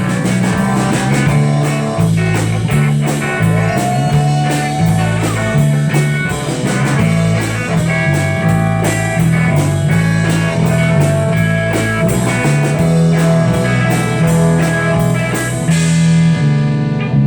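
Live rock band playing an instrumental passage at full volume: electric guitar lead with bent notes over bass and a drum kit, through tube amplifiers. Near the end the drums stop and a final chord rings out.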